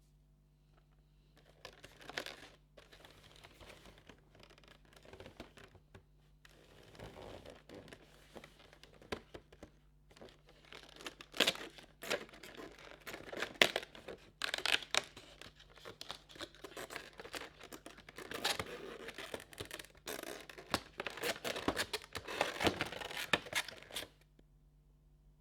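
Packaging being torn open and crinkled by hand, in irregular rustling bursts with sharp crackles, stopping a second or so before the end.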